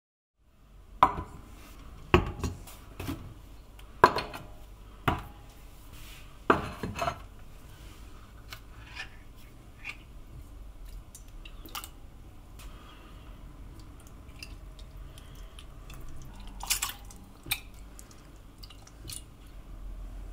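Kitchen clatter: a stainless steel saucepan and a tin of tomatoes knocking and clinking, with several sharp metal clanks in the first seven seconds, then quieter handling sounds and an occasional knock.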